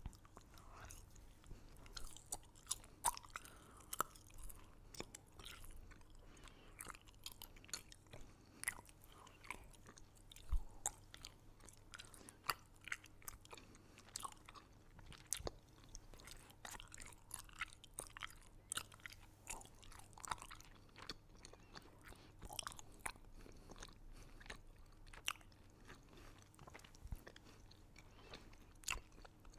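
Close-miked ASMR eating sounds: a person crunching and chewing candy, with irregular sharp crunches several times a second.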